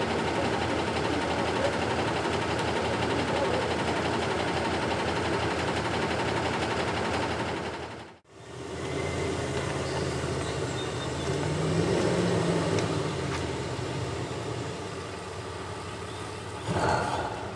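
A box truck's engine running, then pulling away about halfway through and fading as the truck drives off. There is a short break in the sound about halfway through, and a brief burst near the end.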